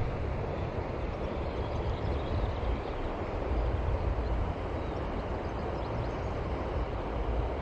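River water flowing steadily, a constant rushing noise with a low rumble underneath.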